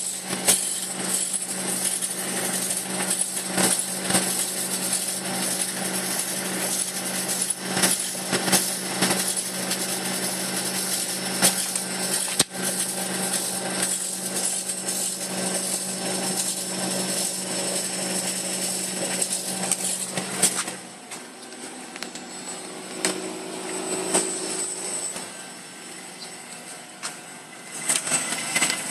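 Ford Focus engine running with an irregular metallic clicking rattle from under the engine, which the owner traced to the aftermarket exhaust front pipe. About two-thirds through, the steady engine hum drops away and the level falls, leaving fainter scattered clicks.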